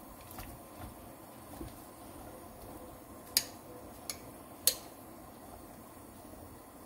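Wooden chopsticks knocking three times against a stainless steel pot about halfway through, sharp clicks over a low steady hiss of greens stirring in hot blanching water.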